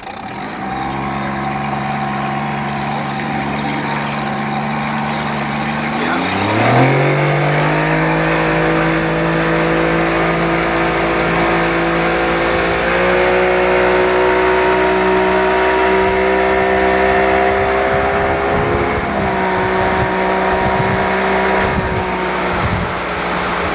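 Motorboat engine running at low speed, then throttled up about six seconds in with a quick rise in pitch, and held at speed while towing a tube, over the rush of wind and water. Its pitch creeps up a little more partway through and eases slightly again later.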